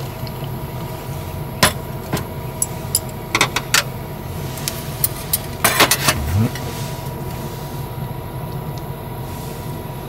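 Sharp clinks and clatters of cookware and utensils, a few scattered over several seconds with a cluster about six seconds in, over a steady low hum.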